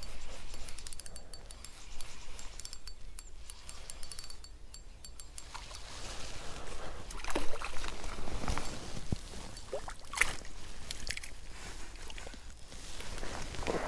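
Spinning reel cranked with a fast ticking, then a hooked perch splashing and water sloshing as it is drawn in to the reedy bank and lifted by hand, with several sharp splashes in the second half.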